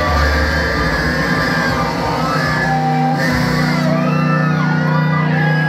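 Live heavy metal band playing loud in a club, the electric guitar soloing with bending, sliding notes over a held low note.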